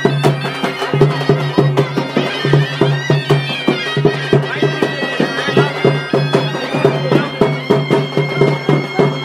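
Traditional folk festival music: a reedy wind instrument playing a wavering melody over a steady low drone and quick, regular drumming.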